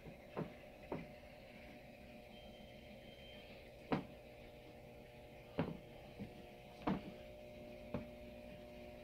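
Faint steady electrical hum from lighted vintage beer signs and motion clocks, broken by about seven sharp, irregularly spaced knocks, the loudest about four seconds in.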